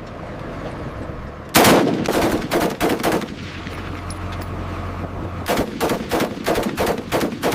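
Belt-fed machine gun firing two short bursts of rapid shots, the first starting with a loud report about a second and a half in, the second starting about two seconds after the first ends.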